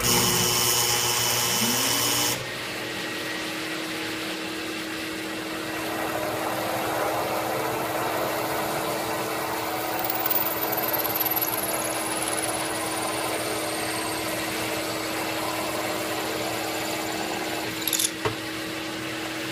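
Drill press motor spinning up and then running at a steady hum, while a hollow Fuller countersink, its drill bit removed, plunges into cherry end grain to cut quarter-inch wooden pins. A loud hiss fills the first two seconds, and there is a short click near the end.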